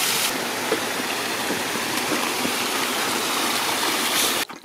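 Steady rush of running water from a small waterfall pouring down a rock face and a shallow rocky brook. The sound cuts off abruptly near the end.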